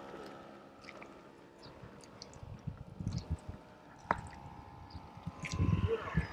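Handling noise as the camera is carried around: scattered clicks and low thumps, with a sharp click about four seconds in and heavier thumping near the end. A faint steady hum runs underneath.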